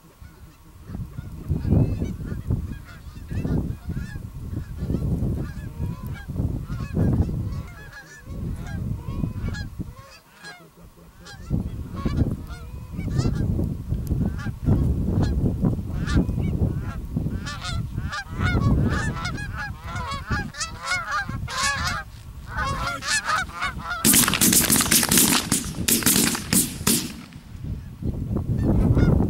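Geese honking and clucking, growing denser and louder as a flock comes in over the decoys. Near the end a loud burst lasts about three seconds.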